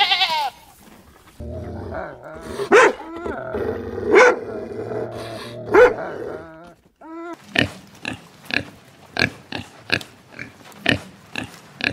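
The end of a sheep's bleat, then a dog barking three times, about a second and a half apart. After that come pigs grunting in a steady run of short grunts, about two a second, while they feed.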